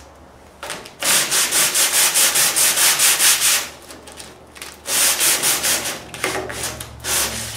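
Body filler being hand-sanded with 80-grit sandpaper on a soft block: quick, scratchy back-and-forth strokes in three spells, the first the longest.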